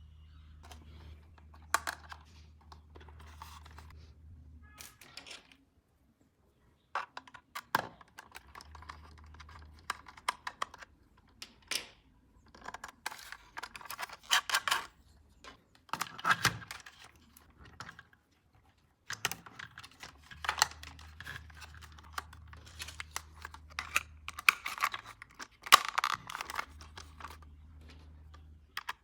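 Hands handling plastic toy parts and packaging: irregular sharp clicks and taps with bursts of crinkling and tearing, stopping briefly twice.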